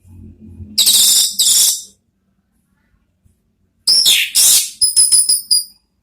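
Orange-headed thrush (anis merah) singing: two loud, scratchy high phrases, then after a pause a falling whistle and a quick run of about six short, sharp high notes.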